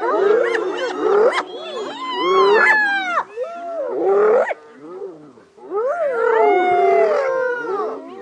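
Hyenas and lions in a fight, calling over one another: many overlapping yelping, whooping calls that rise and fall in pitch. They come in loud bursts, with a short lull about five seconds in.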